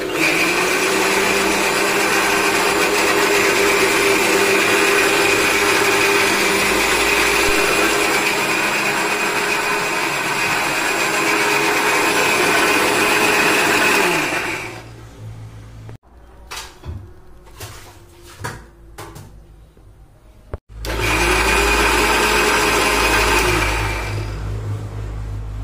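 Electric mixer grinder with a stainless steel jar blending cooked tomato chutney into a smooth paste, its motor running steadily at high speed for about 14 seconds before winding down. A few clicks and knocks follow in the pause. A second short run of about three seconds then winds down near the end.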